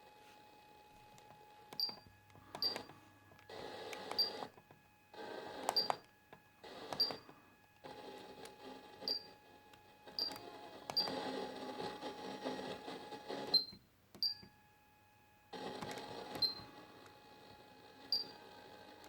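Pioneer KEX-P820RDS car radio head unit giving short high beeps as its buttons are pressed, about a dozen times at irregular intervals. Between the beeps, stretches of hiss and buzz switch on and off, with brief quiet gaps, as the unit changes source or station.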